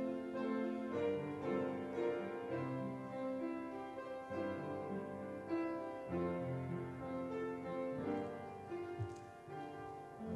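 Slow keyboard music, a church prelude of held chords and a melody moving over them.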